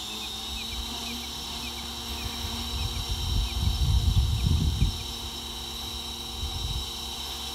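Goblin RC helicopter running on the ground with a steady high motor whine and a low rotor hum, described as really quiet. A low rumbling swell comes about three to five seconds in, and faint chirps repeat in the background.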